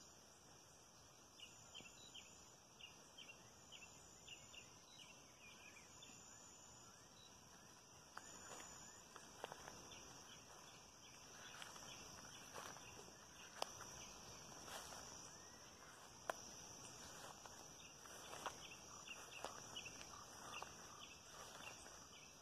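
Faint dusk chorus of insects: a steady high-pitched hum with short repeated trills over it and quick chirps in between. From about eight seconds in, irregular footsteps and rustling through vegetation join in.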